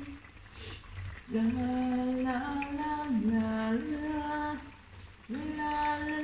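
A woman humming a slow tune without words, holding long notes that step up and down in pitch. She pauses briefly about a second in and again near the five-second mark.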